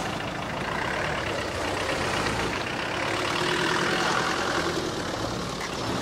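Classic Mercedes-Benz coupé engine running at idle as the car creeps forward at walking pace.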